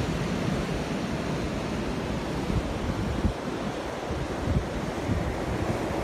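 Atlantic Ocean surf breaking and washing in steadily, with wind buffeting the microphone in irregular low gusts.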